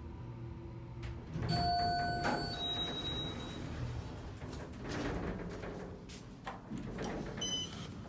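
Otis Series 5 elevator's arrival chime: two tones in a row about a second and a half in, a lower one and then a higher one, each about a second long. The uploader hears it as a Series 5 chime mixed with a backwards Series 1 chime. The car doors then slide open.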